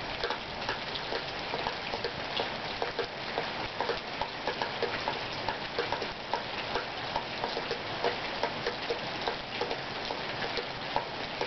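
Steady rain falling, with many irregular drips tapping and pinging on hard surfaces.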